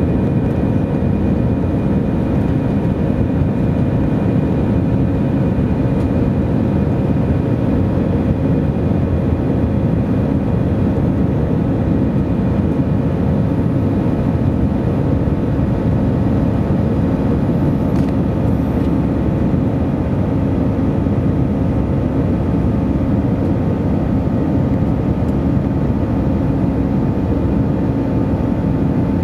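Airbus A319 jet engines and rushing air heard from inside the cabin during the climb after takeoff: a steady deep rumble with a faint even hum over it.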